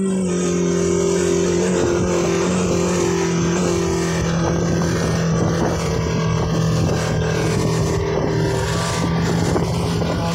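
115 hp Mercury outboard motor running steadily with the speedboat under way, its even engine note over a dense rush of water against the hull and wind.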